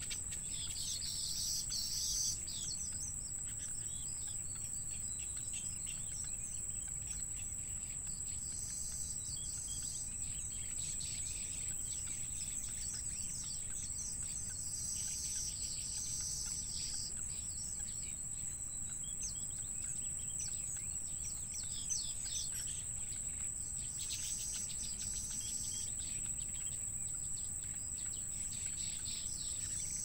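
Reedbed ambience: a steady high-pitched insect drone with brief bursts of bird chirping every several seconds, over a low rumble.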